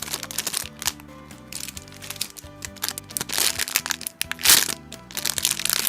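Background music with a steady melody, over which packaging is crinkled in a few short bursts, the loudest past the middle, as a squishy toy is handled.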